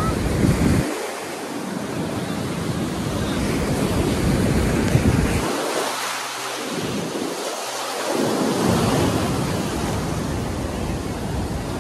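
Sea surf breaking and washing up over sand close by, a loud steady rush that swells and ebbs, with wind buffeting the microphone.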